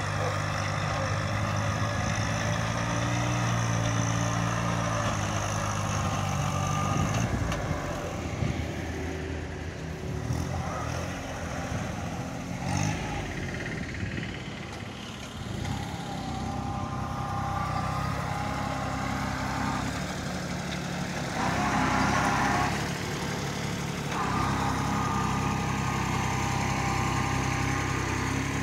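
Compact diesel tractor engine running steadily while it drives a PTO rotary tiller through the soil. The engine note shifts around the middle as the tractor passes close by, and there is a brief louder, rougher stretch a little past two-thirds of the way through.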